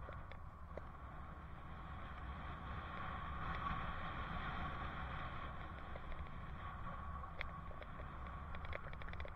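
Riding noise from a bicycle picked up by a helmet camera: a steady low rumble of wind and tyres on asphalt, swelling a little around the middle, with a few light clicks and rattles near the end.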